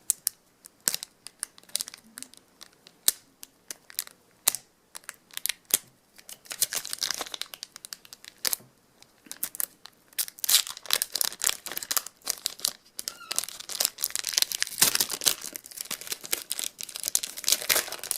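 Trading card pack wrappers being torn open and crinkled, with cards clicking and sliding against each other as they are handled. Sharp ticks and snaps come at first, then longer stretches of crinkling in the second half.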